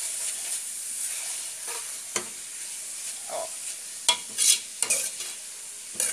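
Ground beef and grated carrot sizzling in a metal pot as a spoon stirs them, the spoon scraping and knocking against the pot a few times, most sharply around four to five seconds in.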